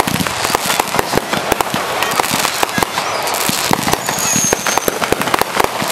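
Aerial fireworks going off in quick succession: a dense, continuous crackle of many sharp pops and bangs, with a brief high whistle about four seconds in.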